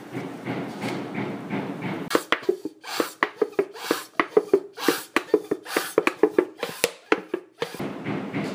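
Rough rubbing noise, then about two seconds in a run of sharp, irregular taps and clicks, some leaving a brief low tone. The rubbing returns near the end.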